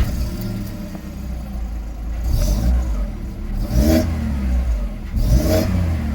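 VW Golf Mk5 1.6 petrol engine idling and revved in a few short throttle blips, its pitch rising and falling each time. It runs smoothly now that a cylinder-one misfire has been cured by sorting the injector wiring.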